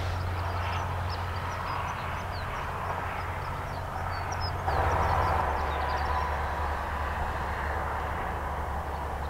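A steady low engine hum, like a vehicle idling, with many short faint high chirps scattered over it for the first several seconds. The hum gets briefly louder about five seconds in and then settles a little lower.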